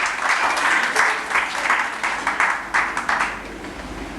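Audience applauding: many people clapping, which dies away about three seconds in.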